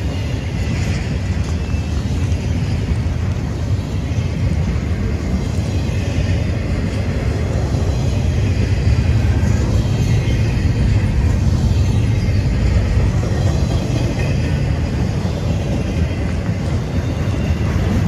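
Double-stack intermodal freight cars rolling past: a steady, loud rumble of steel wheels on the rails.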